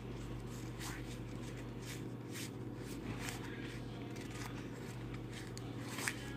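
Stiff Pokémon trading cards being slid and flicked one by one from a hand-held stack, a run of soft irregular rustles with a sharper flick about six seconds in, over a steady low hum.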